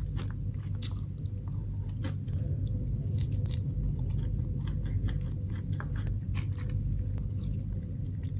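A person chewing and biting food close to the microphone: soft wet mouth sounds and small clicks of eating braised pork and rice from a bowl with chopsticks, over a steady low hum.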